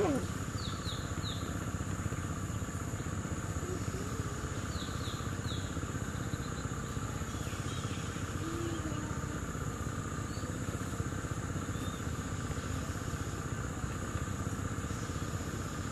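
Steady outdoor background noise with a thin, constant high whine, broken by two short runs of three quick high chirps, about a second in and again about five seconds in.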